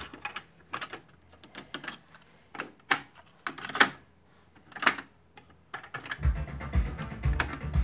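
Aiwa AD-WX707 cassette deck: tape playback music cuts off as the stop button is pressed, followed by a run of about a dozen separate sharp mechanical clicks from the deck's transport buttons and tape mechanism. Music playback starts again about six seconds in.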